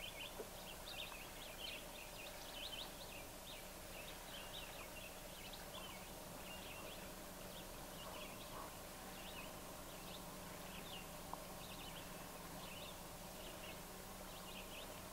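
Faint birdsong: many short, irregular chirps and calls from several birds, over a low steady hum.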